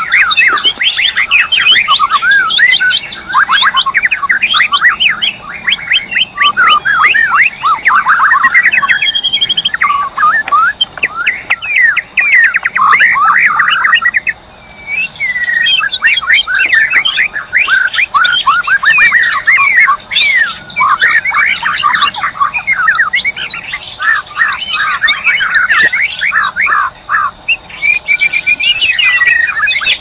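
White-rumped shama singing a long, rapid, varied song of chirps, trills and whistles, pausing briefly about halfway through.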